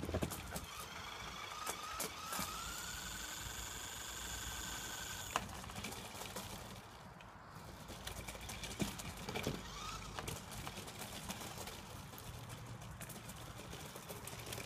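Small electric motor of a radio-controlled monster truck whining as it drives, rising slightly in pitch for several seconds and stopping sharply with a click, then a short second whine later on. Scattered clicks and crunches from its tyres on gravel and paving are heard throughout.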